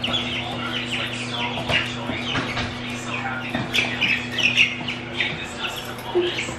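Young chicken pullets peeping and cheeping, many short high calls overlapping, with a steady low hum underneath.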